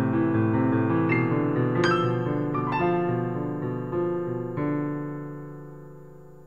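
Piano music: held chords with a few new notes struck, the last chord ringing on and fading away near the end.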